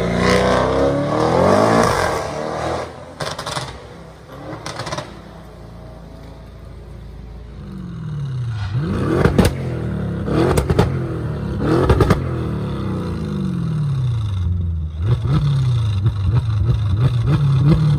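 Audi RS6 twin-turbo V8 accelerating hard away at the start, fading out within a few seconds. After a quieter spell, a tuned C7 RS6 of about 720 hp with a Milltek exhaust is revved repeatedly while standing: several blips, each rising and falling in pitch, the last one held longer near the end.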